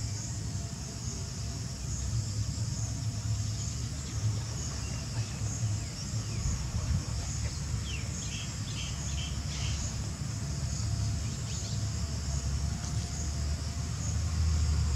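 Outdoor ambience: insects trilling steadily in a high band with regular pulses, over a continuous low rumble. A few short, high chirps come about eight to ten seconds in.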